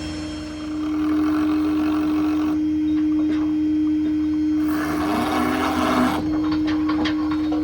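Service-truck crane hydraulics running off the Ford F-550's 6.7 Power Stroke diesel as the IMT crane turns on its rotation gear: a steady hum with one held tone that gets louder about a second in, with a few sharp clicks near the end.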